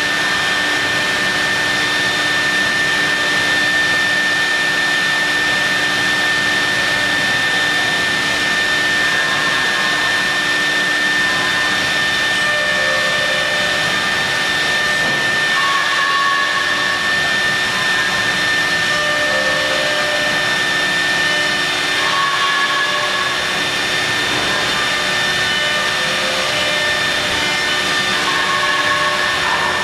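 CNC milling machine running while machining marble: a steady high-pitched whine over a constant rushing noise.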